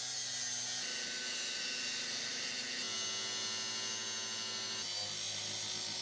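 Angle grinder cutting into a steel bar: a steady motor whine over the harsh hiss of the disc on metal. The pitch steps a few times as the load on the disc changes.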